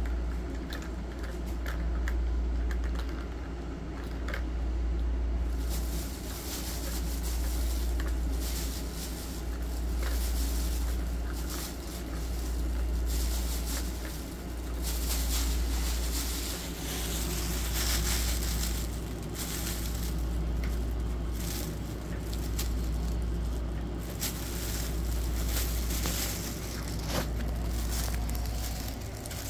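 Cats batting at a plastic ball-track toy: scattered light clicks and rattles over a low rumble that swells and fades about every two seconds.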